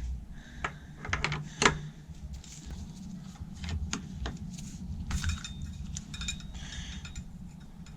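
Metal clicks and clinks of an 8mm hex key being worked on a mountain bike's crank bolt to take the crank arm off, a scattered string of sharp taps with the loudest about one and a half seconds in, over a low steady hum.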